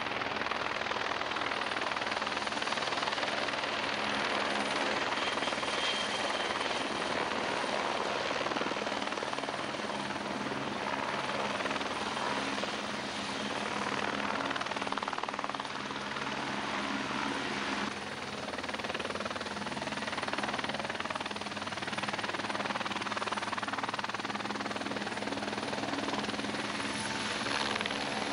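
Eurocopter Fennec military helicopter flying low: steady rotor and turbine noise with a thin high whine.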